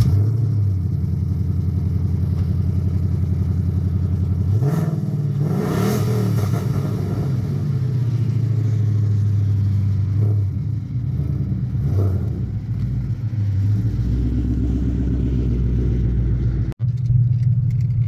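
Supercharged 5.0-litre V8 of a Roush JackHammer Mustang GT idling, revved up and back down once about five seconds in, with two shorter blips of the throttle later on. The sound cuts out abruptly for a moment near the end.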